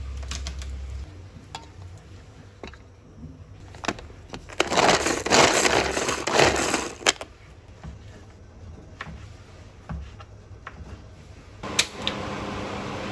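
Hand-pull garlic chopper whirring in a quick run of pulls for about two and a half seconds, its blades mincing garlic in the plastic bowl. Near the end, a gas stove burner clicks alight and its flame hisses steadily.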